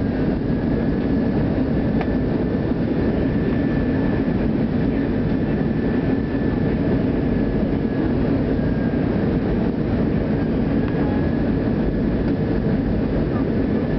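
Airbus A320 cabin noise on final approach, heard inside the cabin: the engines and rushing airflow make a loud, steady noise with a faint steady high whine over it.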